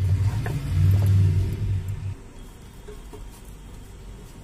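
Wooden spatula stirring and pressing thick semolina dough in a nonstick pan, with a few light knocks. A low rumble, the loudest sound, runs for about the first two seconds and then stops suddenly.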